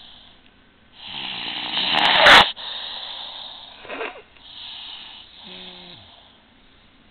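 Snoring: one long snore builds to a loud peak about two seconds in and cuts off sharply, followed by two shorter snores around four and five and a half seconds.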